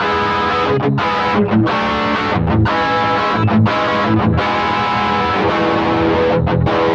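Gibson SG electric guitar played through an Xvive T1 Golden Brownie overdrive pedal with the drive knob at about ten o'clock, giving a moderate overdriven tone. Chords and short phrases, broken by brief gaps about once a second.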